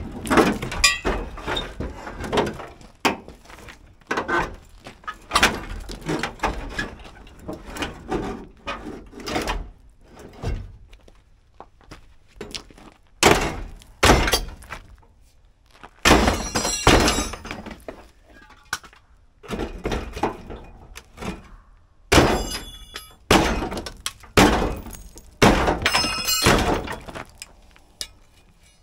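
A long steel bar beating on the truck's front-end metal: a run of irregular heavy thunks and clangs, several of the later blows ringing. He is knocking at a rusted part that is hung up.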